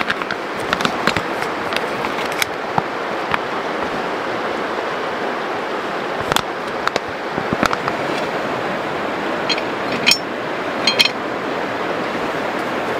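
Steady rushing of a flowing river, with the crinkle and rustle of a plastic food pouch being handled, and a few sharper clicks about ten and eleven seconds in.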